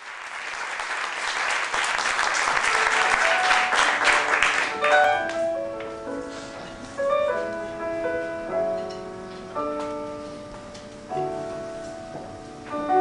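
Audience applauding, swelling and then dying away about five seconds in. A piano then plays slow, soft chords, each struck and left to ring.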